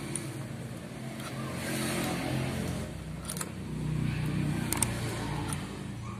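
Engine noise of a motor vehicle, swelling and fading twice, with a few short sharp clicks.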